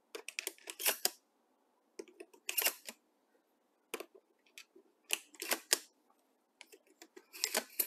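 Shotgun shells being thumbed one at a time into the tube magazine of a Mossberg 590A1 pump shotgun fitted with a universal cartridge adapter. Short clusters of metallic clicks come every second or two as each shell is pushed past the shell latch.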